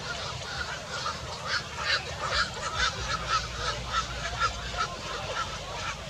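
Black-crowned night heron calls at the nest: a run of short, repeated notes, about three a second, starting about a second in and fading near the end.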